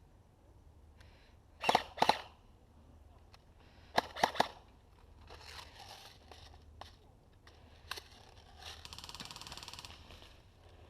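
Airsoft guns firing: a quick pair of sharp shots about two seconds in and a rapid string of three about four seconds in. Near the end comes a steady buzzing rattle about a second long.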